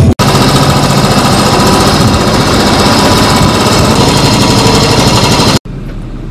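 Motorcycle engine running loudly close by, with a rapid steady thudding. It cuts off sharply near the end, leaving the quieter hum of a car driving, heard from inside the cabin.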